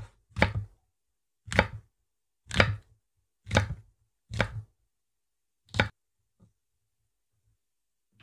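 Kitchen knife slicing a rolled fish cake into rounds, each cut ending in a knock on the wooden cutting board: about seven cuts, unevenly spaced half a second to a second apart.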